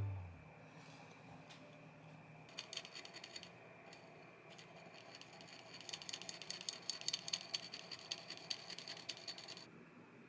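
Rapid light clicking and rattling of small hard objects, in a short spell about two and a half seconds in and a longer, denser one from about six seconds until near the end.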